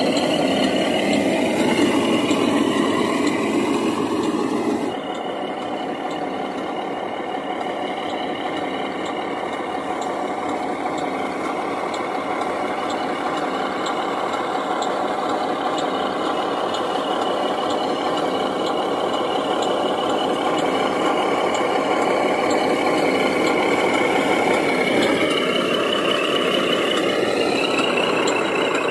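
1/14 scale radio-controlled Mercedes 2638 log truck model driving, its drive whining and the pitch rising and falling with the throttle near the start and again near the end.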